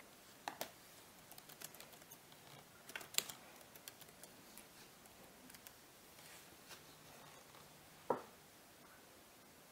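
Quiet typing on a computer keyboard: scattered light keystrokes, with a louder click about eight seconds in.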